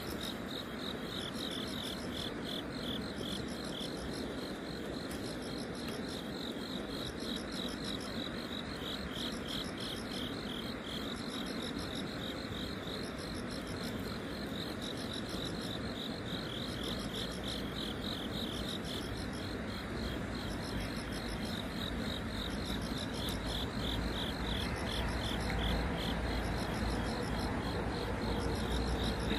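Insects chirring in repeated trains of rapid pulses, over a steady outdoor hiss, with a low rumble rising near the end.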